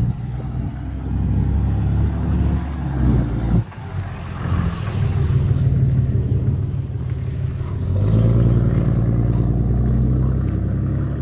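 A motor vehicle's engine running close by: a loud, steady low hum that drops away briefly about three and a half seconds in, then comes back.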